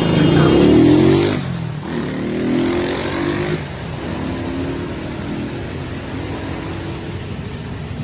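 A motor vehicle engine revs loudly in the first second or so, then runs on more quietly at a fairly steady pitch.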